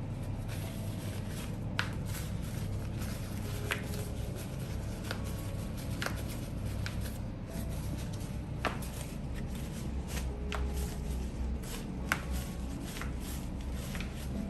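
Hands working on a patient's body during chiropractic chest treatment: a dozen or so sharp, irregular clicks and taps of hands on skin and clothing, over a steady low hum.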